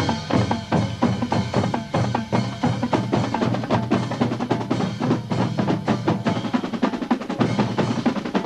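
High school marching band music with the percussion section prominent: rapid drum strokes and rolls under pitched percussion and sustained band tones.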